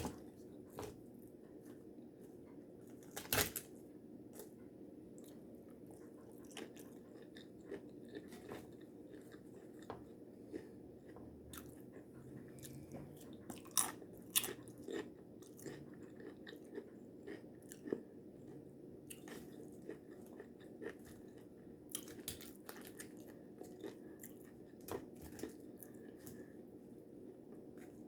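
Close-up eating of taco salad: chewing and crunching of tortilla chips, with scattered short, sharp crunches, two of them louder, a few seconds in and about halfway through.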